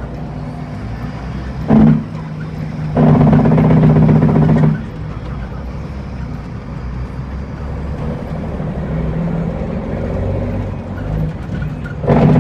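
Cummins N14 diesel of an International truck running low and steady, heard from inside the cab in slow traffic. A loud, steady-pitched horn cuts in three times: a short blast about two seconds in, a longer blast of nearly two seconds right after, and another near the end.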